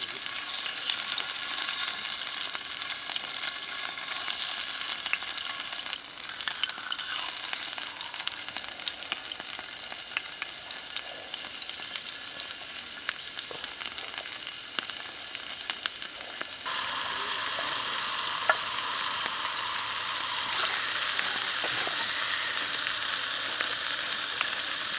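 Pig's groin frying in oil in a square pan over wood embers: steady sizzling with small scattered pops. The sizzle turns suddenly louder about two-thirds of the way through.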